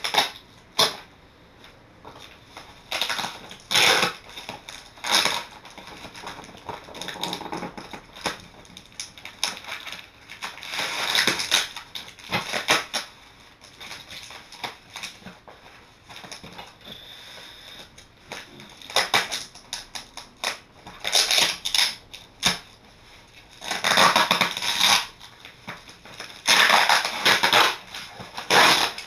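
A box and its packaging being handled and torn open by hand: irregular bursts of crackling, rustling and ripping, with the busiest stretches in the second half.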